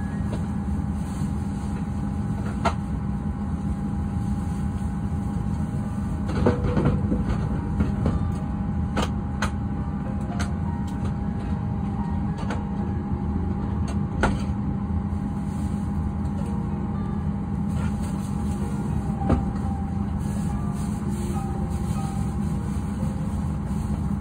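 Steady hum inside a parked airliner's cabin: a low drone with a thin whine over it, broken by scattered clicks and knocks.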